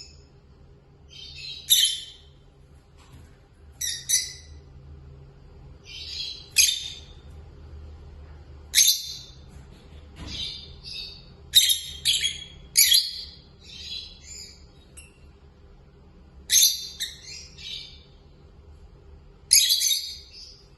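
Peach-faced lovebirds chirping and squawking in short, high-pitched bursts, one every second or two, with a quick run of calls about halfway through.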